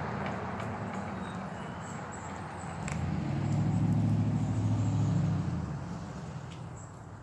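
A motor vehicle passing by: a low engine hum grows louder about three seconds in, peaks, then fades away near the end.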